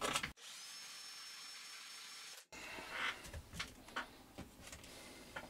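Cordless drill running briefly to widen a hole in a plastic transmitter case: a steady hiss with a faint high whine for about two seconds that starts and stops abruptly. Then come light clicks and rubbing as hands handle the plastic case.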